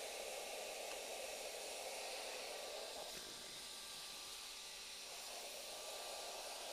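Shop dust extractor running, air rushing through its hose as the nozzle is run along a routed cut to suck up wood chips; a steady hiss that eases slightly about three seconds in.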